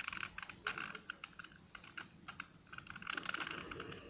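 Fingernail picking and scratching at a sticker on a plastic 2×2 Rubik's Cube: quick, irregular small clicks and scrapes, thickest at the start and again about three seconds in.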